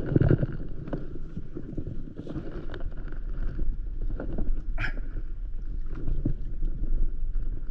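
Wind rumbling on the microphone over water lapping and splashing around an inflatable paddleboard, with a heavy thump right at the start and a sharp splash or knock a little past halfway.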